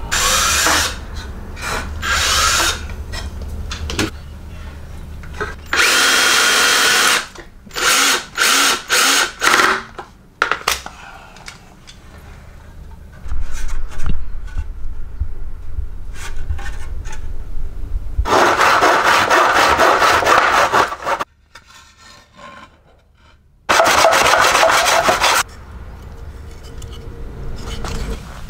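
Power drill driving screws into wooden boards, in several steady runs of one to three seconds and a quick string of short trigger bursts.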